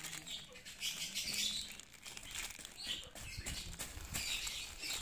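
Clear plastic wrap crinkling and rustling in irregular bursts as it is peeled by hand off a small metal part.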